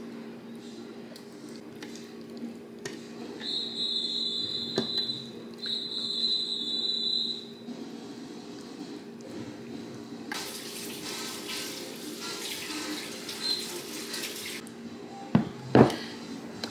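Kitchen tap running for about four seconds, starting some ten seconds in. Earlier come two high, steady whistling tones of about a second and a half each, and near the end a single sharp knock.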